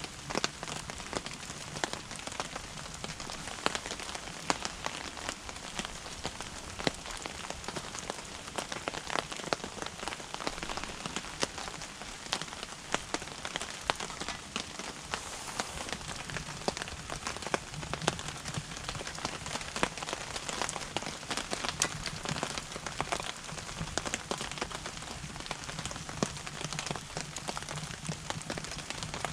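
Wood fire crackling and popping in a small wood-burning cooking stove, a dense run of irregular sharp ticks over a steady hiss.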